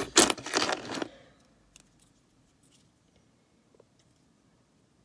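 Plastic Lego pieces clattering and rattling as a hand rummages through a pile of them, in a rush during the first second. After that there are only a few faint clicks of plastic being handled.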